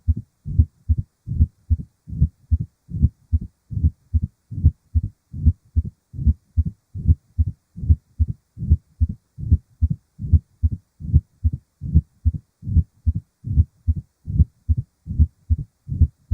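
Heart sounds: a steady run of low, dull thumps, about two and a half a second, beating evenly.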